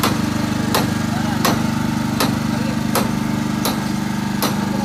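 Small engine of a rail coach screw machine running steadily, with a sharp click about every three-quarters of a second.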